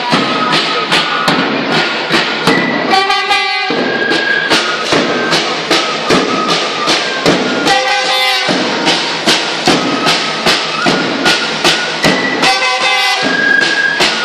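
School marching band playing: drums keep a steady march beat of about two to three strokes a second, while brass horns play a tune with a full held chord about every four to five seconds.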